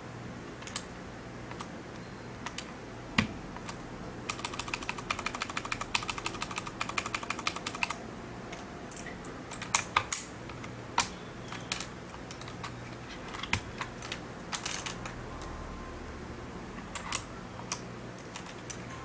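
Keys on a Filco FKB22MB mechanical numeric keypad being pressed: scattered single keystrokes, a fast run of rapid presses from about four to eight seconds in, then single presses again.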